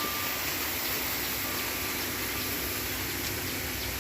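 Steady rushing of water, an even hiss, with faint short insect chirps over it.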